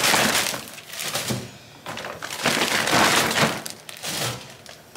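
Clear plastic tote bag crinkling and rustling in several irregular bursts as it is handled and rummaged through.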